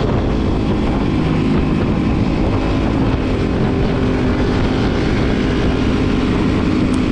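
Motorcycle engine running at a steady speed while riding, its hum holding one pitch under a constant rushing noise.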